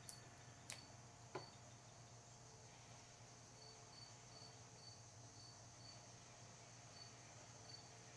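Near silence: a low steady hum, two light clicks in the first second and a half, and later a faint high chirp repeating about twice a second.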